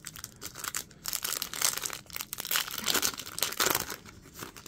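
A foil wrapper of a Topps Chrome baseball card pack crinkling and tearing as it is pulled open by hand, in a run of fast crackles that is loudest in the middle and dies down near the end.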